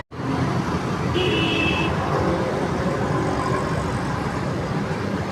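Steady road traffic noise, with a short horn toot about a second in. The sound drops out for an instant at the very start.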